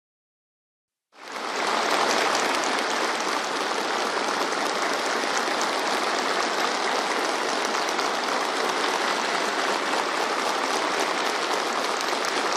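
Sustained applause from a large audience, starting about a second in and holding steady.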